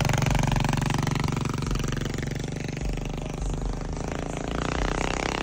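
Mini bike's small single-cylinder engine revving as the bike pulls away, its sound fading as it rides off.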